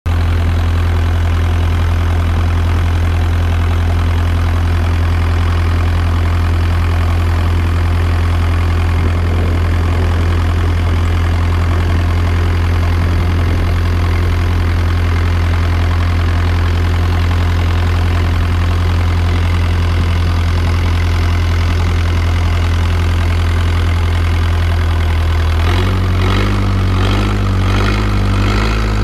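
Engine of a wooden long-tail boat running steadily under way, a strong low drone with water and wind hiss over it. About 26 seconds in the engine note changes and starts to waver.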